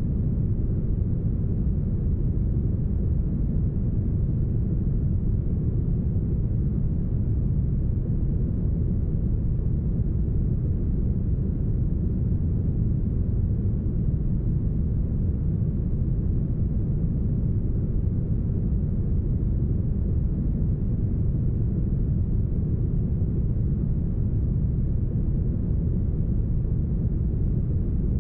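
Deep, smooth brown noise: a steady, even hiss weighted heavily toward the low end, thinning out toward the highs and cut off above the upper midrange.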